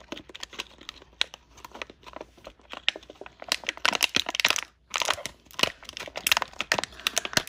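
Clear plastic bag crinkling as hands tear it open and pull Beyblade parts out of it: irregular crackles, busiest in the second half.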